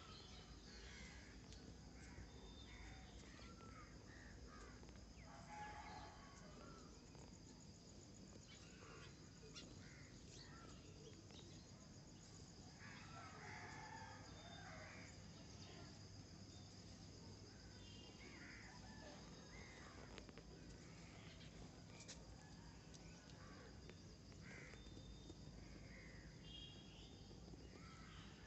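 Faint outdoor ambience: a steady high-pitched insect drone, with scattered bird calls now and then, a little louder about six seconds in and again about halfway through.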